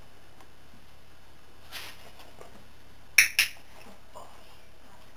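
Handheld training clicker clicked once about three seconds in: a sharp double click of press and release, the marker signal that tells the horse a treat reward is coming.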